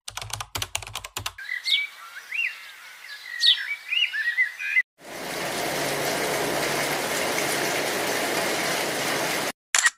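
A run of separate sound-effect clips. First comes about a second of quick clicks, then a few seconds of chirping, then a steady hiss-like noise for about four and a half seconds that cuts off suddenly, and a sharp click near the end.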